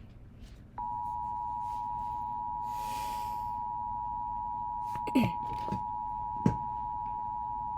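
Emergency Alert System attention signal: a steady two-tone alert (about 853 and 960 Hz together) that starts about a second in and holds, announcing the next weather warning. Two sharp clicks sound over it near the middle.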